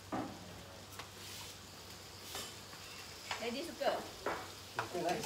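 Beef sizzling on a hot barbecue griddle, a steady hiss, with a few sharp clicks and taps of cooking utensils on the pan.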